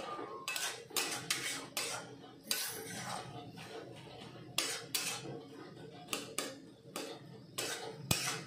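Metal spatula scraping and clinking against an aluminium kadai as a thick curry is stirred, in quick irregular strokes with a short pause about halfway through.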